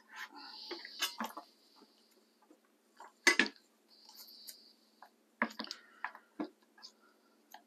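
Scattered knocks and taps of a cleaver and hands on a wooden cutting board while spring onions are trimmed. The loudest knock comes about three seconds in.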